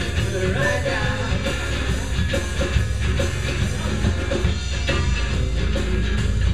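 Live rock band playing: electric guitars, bass and drums, with a sung vocal line.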